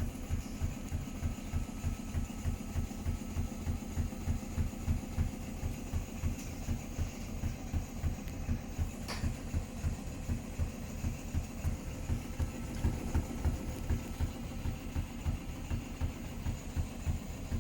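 Hotpoint Smart Tech washing machine on a very unbalanced spin: the drum thumps rhythmically, about two to three times a second, over a steady low hum.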